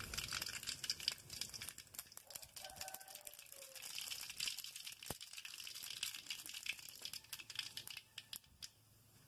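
Mustard seeds spluttering in hot oil in a metal kadai: a dense run of small, sharp pops and crackles that thins out near the end.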